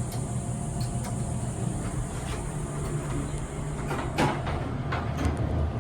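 Oracle hydraulic elevator cab going down, with a steady low hum from the car and a sharp knock about four seconds in.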